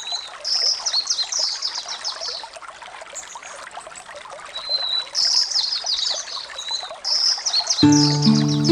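A songbird sings repeated quick phrases of fast falling high notes, three times, over a steady trickle of running water. Music with steady held tones comes in near the end.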